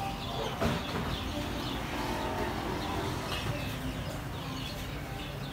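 Street-food stall ambience: a steady low hum with scattered faint high chirps, and a sharp clink about half a second in.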